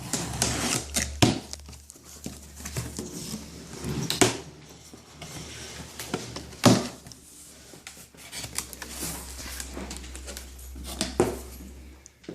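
Cardboard monitor box and its packing being opened and handled: rustling and scraping broken by several sharp thunks and knocks. The loudest come about one, four and seven seconds in.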